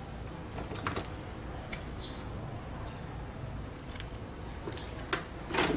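Steady low background noise with a handful of short, light clicks and taps scattered through it, like small objects being handled.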